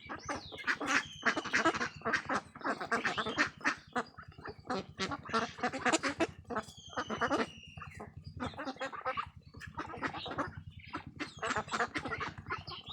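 A flock of domestic ducks quacking in a dense, continuous chorus. Two high, thin, falling whistle-like notes come through it, one just after the start and one about seven seconds in.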